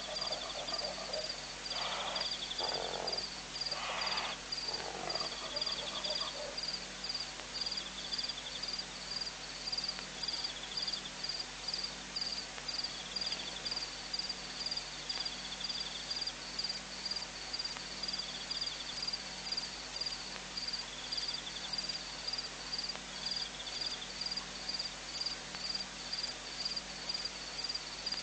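Outdoor chorus of small calling animals: a high chirp repeating evenly about every two-thirds of a second throughout, over a fainter intermittent trill, with a few lower, louder calls in the first six seconds.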